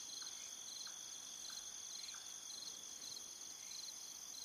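Faint insect chorus, typical of crickets: a steady high hum with short trilled chirps repeating about twice a second.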